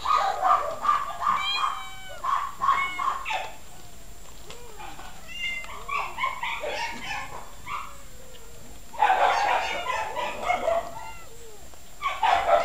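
Several caged cats meowing, short pitched calls coming in quick succession at first, then more sparsely, with a louder jumble of overlapping calls about nine seconds in and a short cluster near the end.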